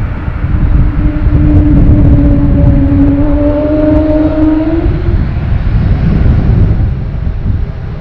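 Embraer E195-E2's Pratt & Whitney PW1900G geared turbofans spooling up from idle toward take-off power: a loud, deep rumble carrying a steady moaning tone, the jet's characteristic 'whale sound'. The tone rises slightly and fades out about five seconds in, while the rumble goes on.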